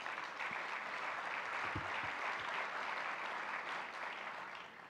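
Audience applauding, a dense patter of clapping that holds steady and then fades out near the end.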